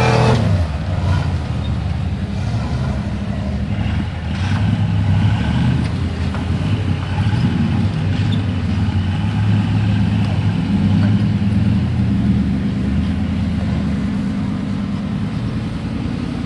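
Off-road vehicle engines running and working as the rigs climb and drive over rocky dirt ground, their pitch and level rising and falling.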